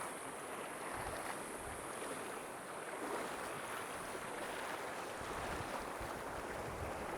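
Steady rushing of a river flowing over rocks, with uneven low buffeting of wind on the microphone.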